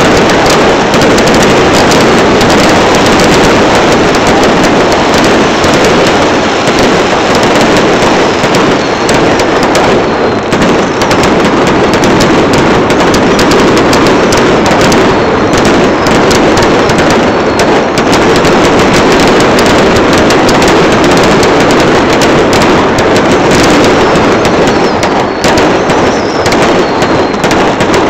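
Aerial fireworks exploding in a dense, unbroken barrage, the bangs and crackle running together with no pause between them. The sound is so loud that the recording stays at its limit throughout.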